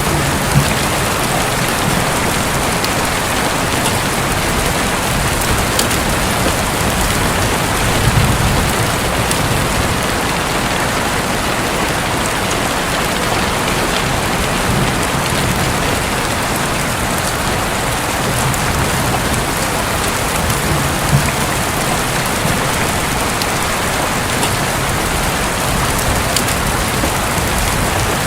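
Steady, heavy rain falling on a roof, with a few sharper drop hits standing out now and then.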